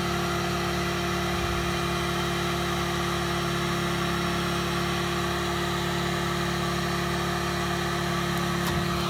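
WEN dual-temperature heat gun running steadily: a constant rush of blown air over a low motor hum. It is heating reflective tape to soften the adhesive so the tape can be peeled off.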